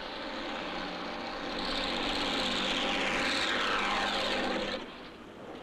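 Propeller aircraft engine droning as the plane passes overhead, growing louder over a few seconds, with a falling sweep in its sound, then cutting off abruptly near the end.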